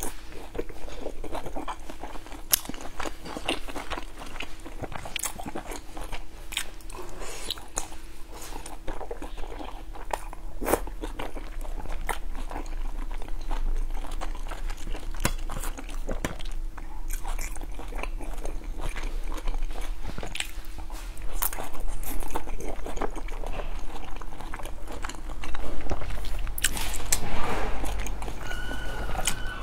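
Close-up eating sounds: biting into and chewing soft, sauce-dipped meat-filled dumplings, with many small wet mouth clicks and smacks. The chewing grows louder in stretches toward the end.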